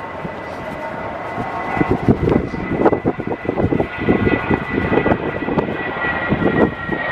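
Boeing 777-200 jet engines running, with a steady high whine over a rough, crackling rumble that grows louder about a second and a half in.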